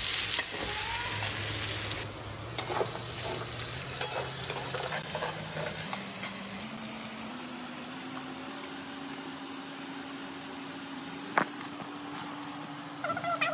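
Sliced potatoes sizzling in hot oil in a wok, with a metal spatula clicking and scraping against the pan as they are stirred in the first couple of seconds. After that the sizzle goes on more quietly, with an odd click.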